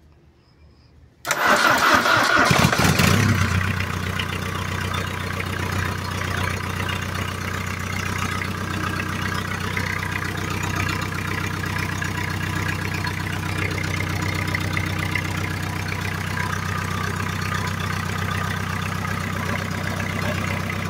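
Ford Fiesta 1.8 engine cranked and started about a second in, louder for a couple of seconds as it catches, then settling to a steady idle. It runs without the former ringing noise, now that the loose bolt and the alternator belt have been fixed.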